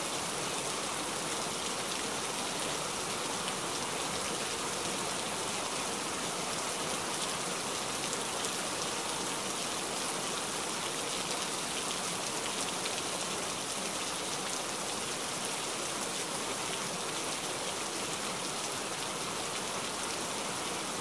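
Heavy rain falling steadily: an even hiss made of many small drop impacts.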